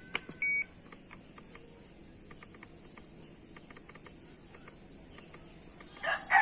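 Steady chirring of insects, with a short electronic beep from the radio transmitter about half a second in and scattered faint clicks. A sudden loud sound right at the end leads into a rooster crowing.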